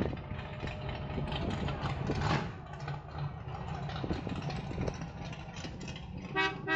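A vintage car engine runs at low speed as the car drives slowly past. Near the end a car horn gives two short toots.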